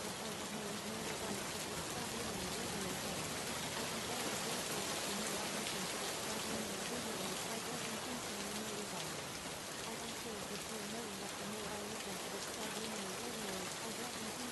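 Steady rain, an even hiss of drops, with a faint low voice wavering beneath it.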